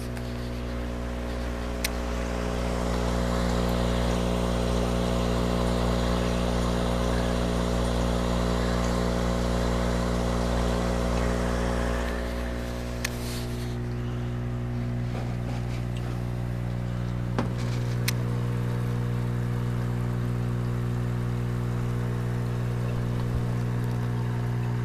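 Hydroponic reservoir's pumps running: a steady electrical hum with a hiss of moving, bubbling water that drops away about twelve seconds in. There are a few light clicks.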